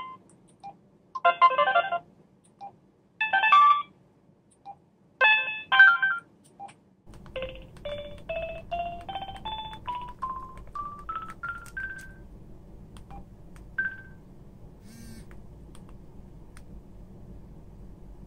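Samsung B110 mobile phone's built-in message alert tones playing through its small speaker as they are previewed in the tone menu: three short electronic jingles about two seconds apart, then a longer run of beeps climbing step by step in pitch.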